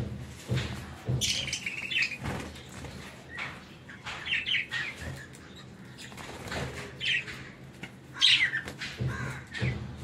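Budgerigars chirping and squawking in short, sharp calls, loudest about a second in and again near the eighth second.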